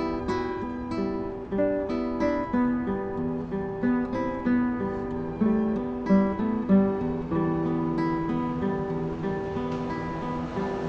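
Two nylon-string classical guitars playing a duet in E minor, finger-plucked notes with melody over accompaniment. The notes come thick and fast for the first several seconds, then thin out into fewer, ringing notes near the end.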